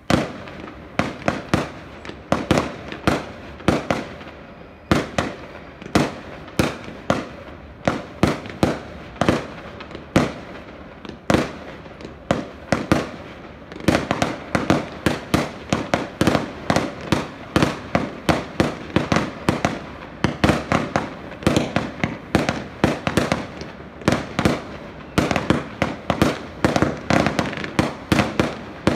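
Fireworks display going off: a sudden start, then a rapid, continuous series of sharp bangs from bursting aerial shells, several a second, getting denser about halfway through.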